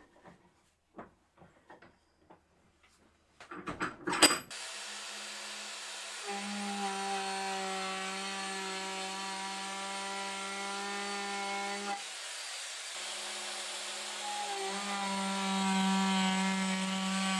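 A few knocks from clamping the wooden handle, then a trim router starts about four seconds in and runs with a steady whine while rounding over the edges of an oak mallet handle. It is louder during the cutting passes, with a brief let-up midway.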